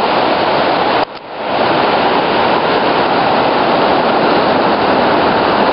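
Waterfall rushing loudly and steadily, a dense roar of falling water. The sound briefly drops away about a second in, then comes back at full strength.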